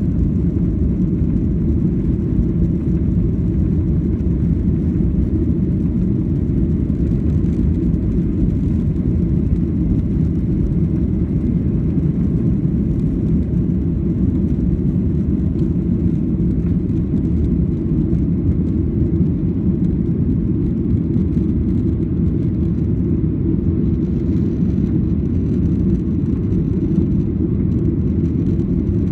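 Jet airliner engines at takeoff thrust heard from inside the cabin: a loud, steady low rumble through the takeoff roll and lift-off.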